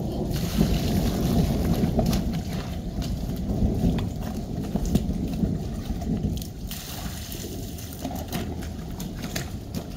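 Water sloshing and splashing as rainwater is scooped from a plastic barrel with a plastic bowl and poured out over rubber boots to rinse them, with a downspout running into the barrel. Uneven splashes and small knocks come throughout.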